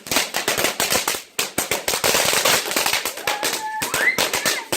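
Fireworks crackling and popping in a rapid, irregular string of sharp cracks, with a hissing stretch about two seconds in. Near the end come a short held high tone and a brief rising whistle-like call.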